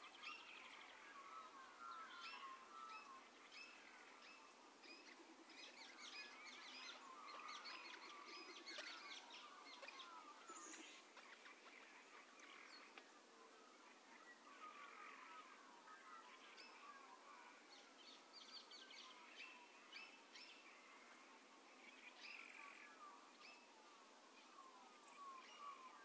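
Faint dawn chorus of many birds chirping, trilling and calling over one another in eucalypt bushland, busiest a few seconds in and again near the end.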